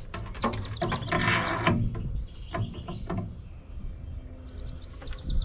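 Metal clicking and rattling as a stainless drinking-water spigot is handled and fitted into the faucet hole of a stainless steel sink, with a short scrape about a second in. A bird chirps near the end.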